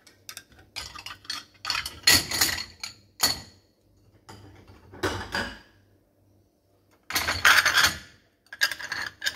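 Ceramic plates and small dishes clattering and clinking as they are set into dishwasher racks, in several short bouts with a lull about two-thirds of the way through.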